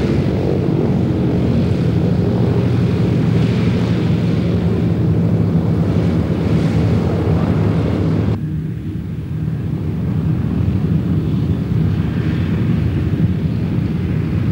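Douglas DC-3 Dakota's twin radial piston engines running at taxi power, a steady low propeller drone. About eight seconds in, the sound abruptly turns duller and slightly quieter, then carries on.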